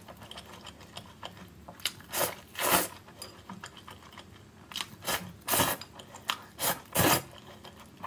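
Close-miked slurping of spicy noodles in chili sauce: a series of short slurps, a few about two to three seconds in and more from about five to seven seconds in.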